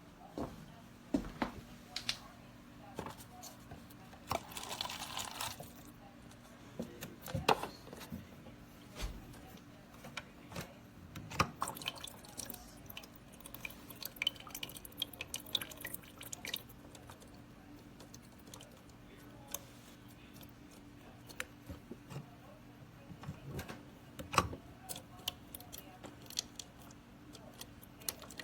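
Water dripping and splashing, with scattered light clicks and knocks and a short rush of running water about four to five seconds in, over a steady low hum.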